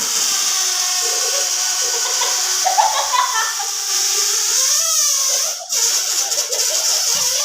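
Air rushing through a giant balloon's neck: a loud steady hiss that starts suddenly, with a wavering squeal that glides up and down in the middle and a brief break about five and a half seconds in.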